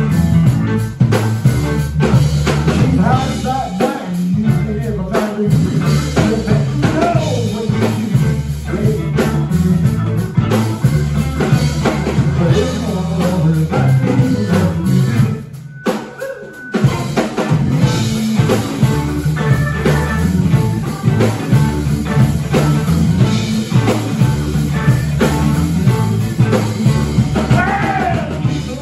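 Live electric blues band playing: electric guitar, bass guitar, keyboards and drum kit, with a male lead vocal at times. About halfway through the band drops out for a moment before coming back in.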